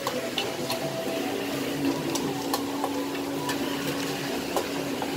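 Meat stir-frying in woks over charcoal stoves: a steady hiss of frying with scattered clinks of metal spatulas against the woks, and a steady hum from about a second in.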